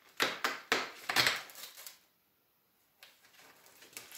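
Packaging being handled and unwrapped by hand: a quick run of sharp crackles and rustles in the first two seconds, then a brief pause and faint handling noises.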